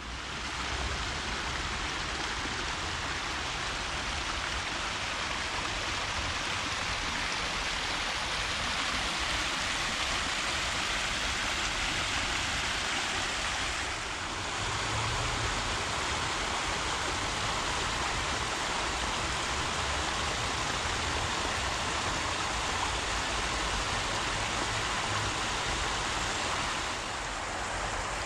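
Tidal floodwater from a spring tide rushing over the riverbank and across grass: a steady hiss of fast-flowing, churning water, dipping briefly about halfway through.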